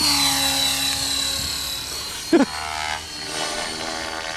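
An Align T-Rex radio-controlled helicopter flying fast and climbing away. Its high-pitched whine and rotor buzz fall in pitch as it pulls away. A single short, loud sound comes about halfway through.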